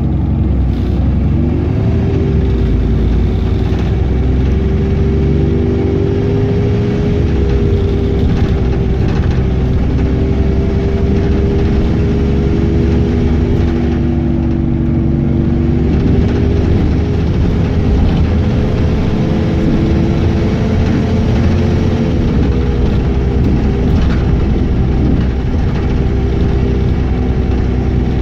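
Alexander Dennis Enviro400 double-decker bus's drivetrain under way, with a strong droning tone that climbs slowly, drops about halfway through, then climbs again. This is the odd noise on acceleration that the owner of the recording cannot identify.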